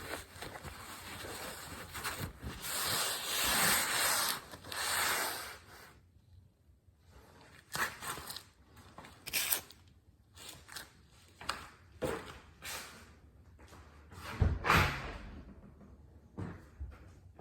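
Rubbing and scraping for about six seconds, then scattered clicks and knocks of things being handled, the loudest a thump about fourteen seconds in.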